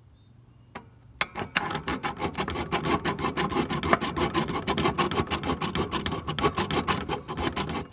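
A flat hand file rasping back and forth in quick strokes on the steel of a Craftsman riding mower deck, filing flat a worn notch that kept the blades from disengaging. The filing starts about a second in and stops suddenly at the end.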